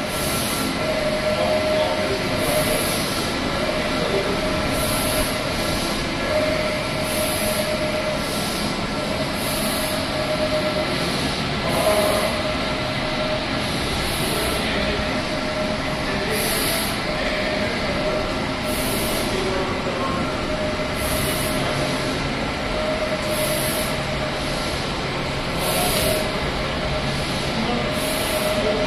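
Trujet G20 sublimation textile printer running: a steady mechanical hum with a short hiss and whine repeating about every two and a quarter seconds, the rhythm of the print head carriage shuttling back and forth across the fabric.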